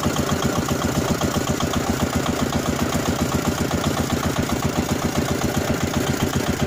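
Diesel engine of a small river ferry boat running steadily under way, with a rapid, even beat.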